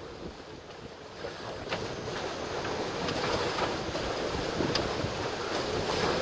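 Wind buffeting the microphone over the rush of waves and water around a sailing catamaran under way, growing louder about a second and a half in.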